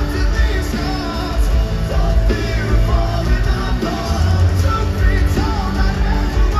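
Live rock band playing: electric guitars, bass guitar and drums with a lead singer's voice over them, heard through the arena's PA.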